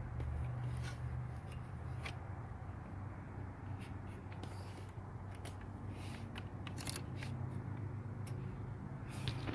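Scattered light clicks and scrapes, like hand tools and small parts being handled, over a steady low hum.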